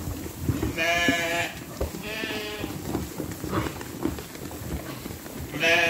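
Ewes bleating while feeding on hay and corn: two clear bleats about one and two seconds in, a fainter one in the middle, and a loud one starting near the end, over a low rustle and clicking of hay.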